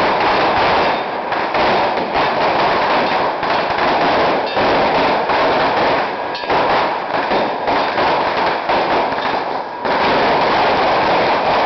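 A long string of firecrackers going off in a rapid, continuous crackle of small bangs, with a few short lulls.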